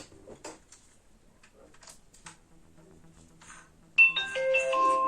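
A few faint clicks and taps, then about four seconds in, music starts suddenly with several held keyboard-like notes sounding together.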